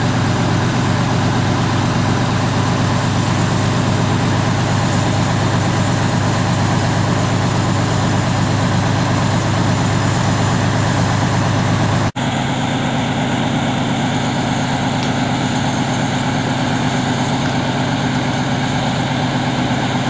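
Heavy diesel truck engine running steadily close by, an even low drone. The sound cuts out for an instant about twelve seconds in and picks up again with a slightly different tone.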